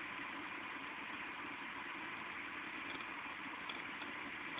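Steady rush of heavy rain falling, an even hiss with no break, with a few faint ticks about three seconds in.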